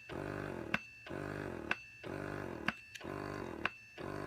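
Electric breast pump running in expression mode, cycling about once a second: a motor hum for most of each cycle, ending in a sharp click before the next stroke.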